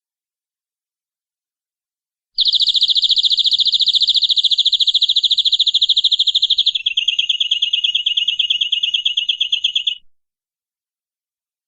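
Domestic canary singing one rapid, even trill of repeated notes that starts about two seconds in, shifts to a slightly lower trill partway through, and cuts off sharply near the end.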